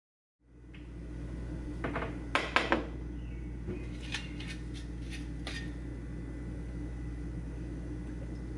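A frying pan is set down and handled on a glass-top stove, giving a few loud clattering knocks about two seconds in and lighter clicks a couple of seconds later. A steady low hum runs underneath.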